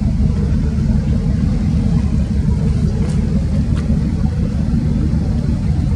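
Steady low rumble with no clear rhythm or pitch, with two faint ticks a little after the middle.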